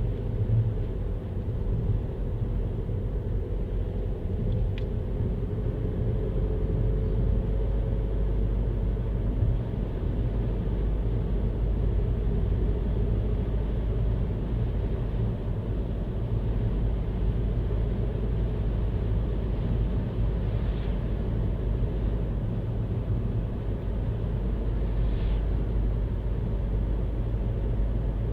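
A car on the move: steady low road and engine rumble, with a faint steady whine that rises slightly in the first few seconds.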